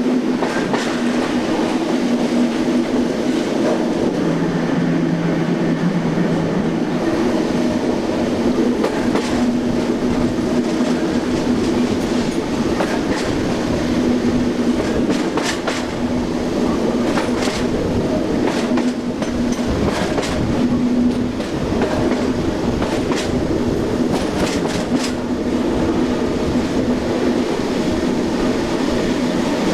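SNCB AM80 electric multiple unit running along the line, its traction motors giving a steady electric hum, with a lower tone for a few seconds early on. A run of clicks from the wheels over rail joints comes through in the middle.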